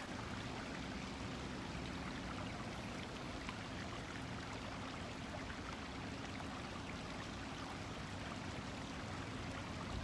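Shallow creek water running steadily over rocks in a riffle: a continuous, even rush.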